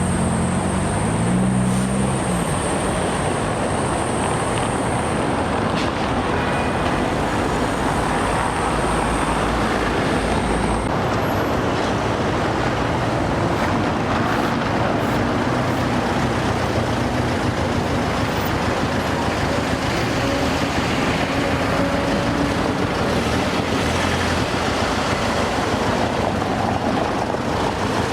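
City street traffic, vehicles passing, with a thin high whine that stops about eleven seconds in.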